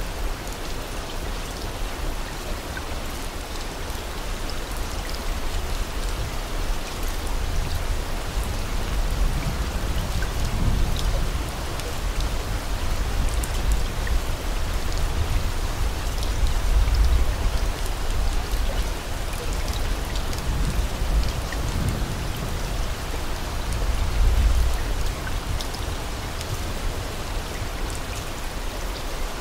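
Steady rain, with faint patters of drops and a low rumble that swells up several times.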